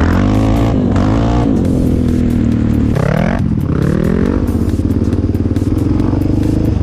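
Sport quad engine heard from the rider's seat, revving up and easing off through the throttle and gears. About three seconds in the sound jumps abruptly to another rising rev.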